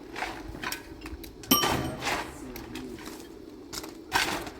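A single sharp metallic clang with a brief ringing tail about a second and a half in, amid lighter knocks and clicks of metal being handled.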